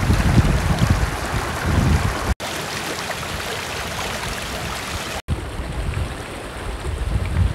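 Shallow mountain river rushing over rocks and boulders: a steady, loud wash of flowing water, with a low rumble in the first two seconds and again near the end. The sound drops out for an instant twice.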